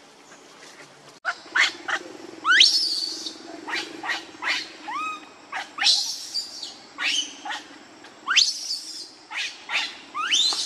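Baby macaque crying: a series of high, quickly rising squeals, some short and some drawn out, with short clicks between them.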